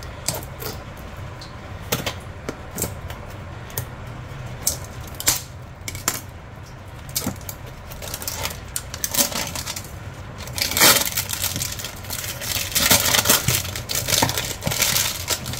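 Scattered clicks and scrapes of a blade working at the seal of a cardboard phone box, then, from about ten seconds in, a dense crackling of clear plastic shrink-wrap being pulled off the box.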